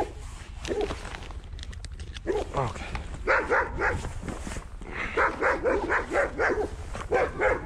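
A dog barking in runs of short barks: a few about two seconds in, then a quick series of about four barks a second through the second half.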